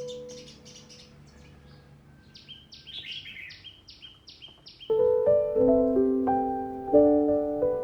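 A small bird chirping a quick series of short, high, falling notes, about four a second. About five seconds in, light background music with held, stepping notes comes in and becomes the loudest sound.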